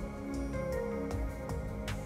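Background music: held, soft instrumental notes shifting in pitch, with a light percussive hit near the end.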